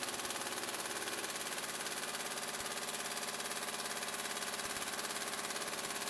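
Air impact wrench hammering continuously through a half-inch universal impact socket into a torque tester, a rapid, even rattle of blows.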